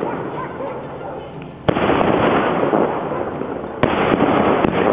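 Home-made aerial firework shells bursting: two sharp bangs about two seconds apart, each followed by a hissing rush that slowly fades.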